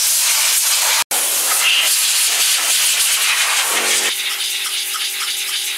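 Compressed-air blow gun hissing as it blasts dust off an engine bay, cutting out for an instant about a second in. From about four seconds the hiss is a little quieter and carries a steady low tone.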